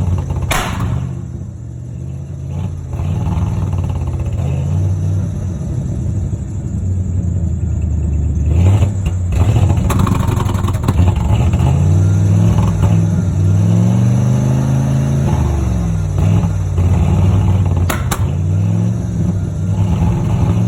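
1995 Ford F-150's engine running, its pitch rising and falling several times as it is revved in the second half, with a couple of sharp clicks. The truck is running on a bad alternator.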